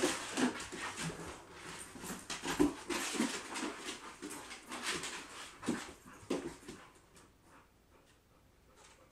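A boxer and a pit bull puppy play-fighting, making many short vocal sounds mixed with paws and claws on a wooden floor; the noise dies down after about seven seconds.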